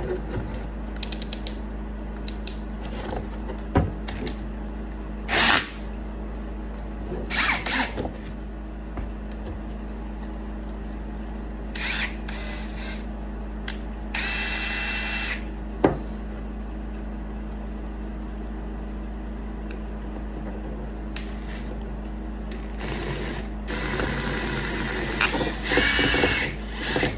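Electric drill running steadily, with scattered knocks and clatters and a brief, higher whine about fourteen seconds in.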